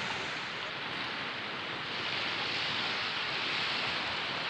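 Steady hiss of gentle sea waves washing at the shore, with no distinct breakers.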